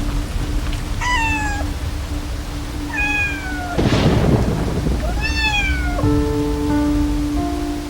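A cat meowing three times, each call falling in pitch, over steady rain, with a loud clap of thunder about four seconds in. Soft held music notes come in near the end.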